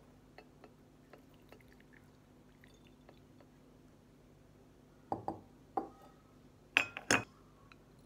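Glass and porcelain teaware handled while green tea is strained: faint light drips and ticks, then sharp clinks, three about five seconds in and the two loudest about a second later.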